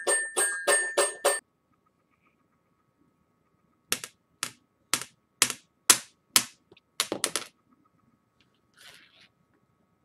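A short run of bell-like musical notes repeating about three times a second stops abruptly. After a pause come about ten sharp clicks over three seconds, then a faint rustle.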